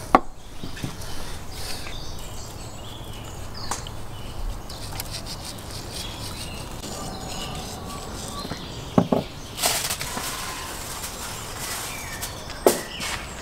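Outdoor ambience with a steady low hum and faint bird chirps. A few knocks and clatters come from handling things at a table, the loudest about nine seconds in, followed by a short rush of noise.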